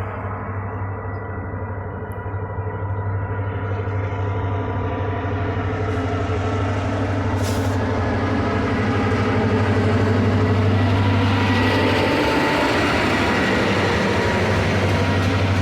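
Diesel locomotive of a CSX freight train running with a steady low engine drone, growing louder over the first ten seconds or so as it approaches, then holding loud.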